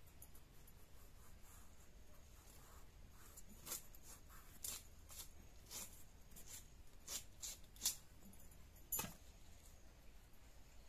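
A curved sickle-like iron blade cutting through raw bottle gourd held in the hand: a string of short, crisp cuts, about a dozen, unevenly spaced, starting a few seconds in, the sharpest two near the end.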